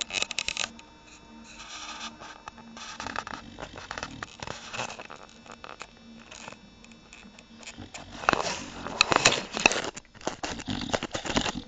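English bulldog snoring while awake: a series of noisy snoring breaths, the loudest ones near the end, with sharp clicks among them.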